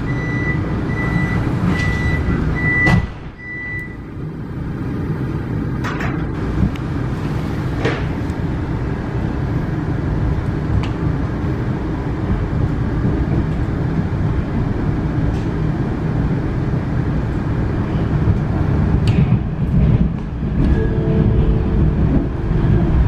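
Vienna U-Bahn train: the door-closing warning beeps, a high tone about twice a second, then the doors shut with a thump about three seconds in, and the train pulls away, its low running noise on the track building and holding steady.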